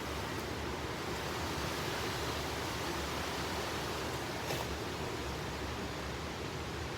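Hurricane wind and rain: a steady rushing noise.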